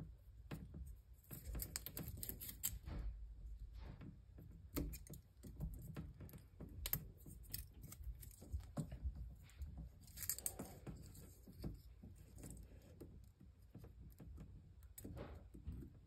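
Faint, irregular clicks and crinkles of thin aluminium foil shielding on Cat8 twisted pairs being handled and cut with electrician's scissors.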